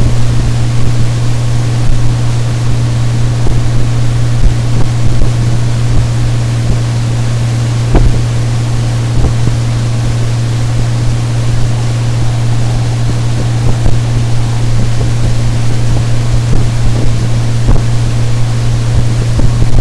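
50 HP Mercury CommandThrust four-stroke outboard running steadily with the boat underway at speed, mixed with wind rush on the microphone. Occasional sharp thumps come as the hull hits the chop, the strongest about eight seconds in.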